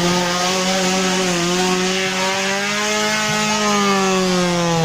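Off-road 4x4's engine running hard at high revs, its pitch held high with a slow rise and fall.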